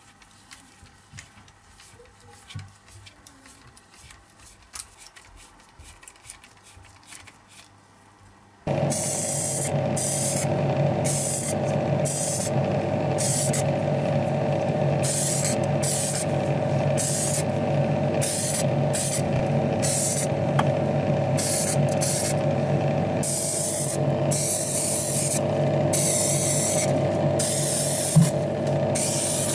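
Spray paint hissing in repeated short bursts onto small diecast model parts, over a steady machine hum that switches on abruptly about nine seconds in. Before that, only faint clicks of parts being handled.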